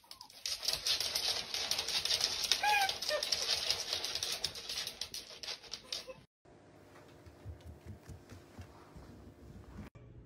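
Rapid clicking and scrabbling of a small dog's claws on a hardwood floor, with one short high squeak about two and a half seconds in. The sound cuts off a little after six seconds to a faint low room hum.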